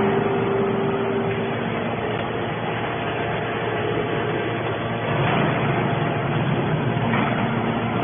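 Hydraulic scrap-metal baler running: a steady mechanical hum from its pump and motor, growing a little louder about five seconds in.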